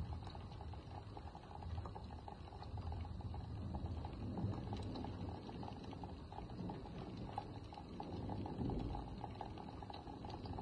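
Steady rain patter with a dense scatter of small drop ticks, over a low rumble of distant thunder that swells and fades twice.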